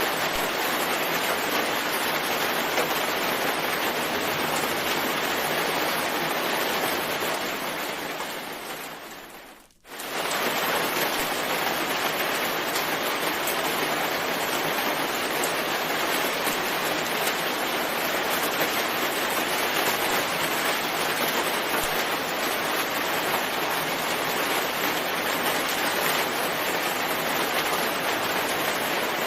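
Steady rain, an even hiss. It fades down to near silence over about three seconds, a third of the way in, then comes straight back at full level.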